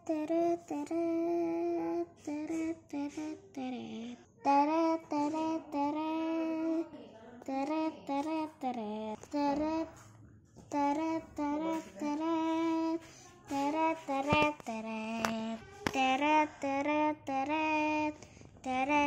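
A young girl singing unaccompanied: phrases of long held notes with a slight wobble, broken by short pauses.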